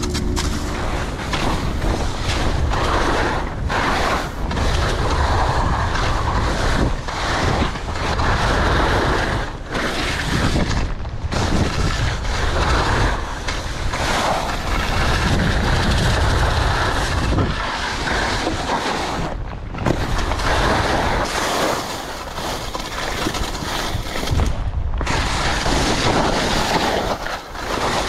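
Wind rushing over a helmet-mounted action-camera microphone at skiing speed, mixed with skis scraping and carving through soft snow. The noise surges and eases through the turns, with a few short dips.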